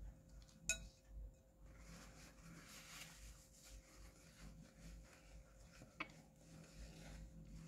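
Near silence, broken by a light click about a second in as a spoon is set down against a ceramic bowl, then a faint rustle of a paper napkin wiping the mouth, and another small click near the end.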